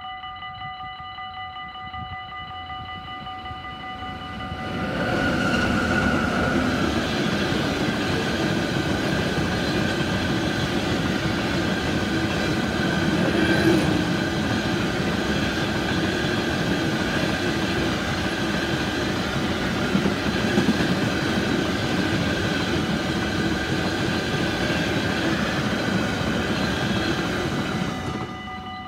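Iron ore freight train passing close by behind an electric locomotive. The rumble and wheel clatter of the hopper wagons rise sharply about five seconds in and hold steady until the train clears near the end. A level-crossing warning bell rings steadily underneath throughout.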